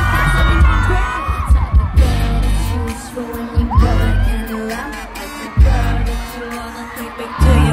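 Pop song with a woman singing, played loud over a concert PA with a heavy bass beat and hard drum hits. A few crowd whoops come in over it.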